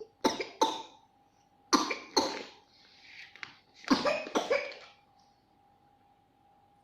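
A young child coughing in three bouts of two coughs each, then stopping about five seconds in.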